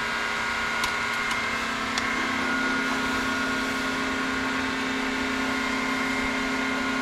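Valve seat cutting machine running, a steady motor hum with a higher whine over it, as its cutter takes the 75-degree cut that opens up the throat beneath a valve seat in an aluminium cylinder head. Two light clicks about one and two seconds in.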